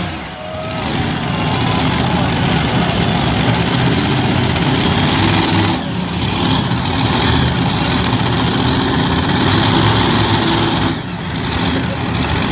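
Heavy engine of a pulling tractor running steadily at idle, with two brief drops in level, about six seconds in and near the end.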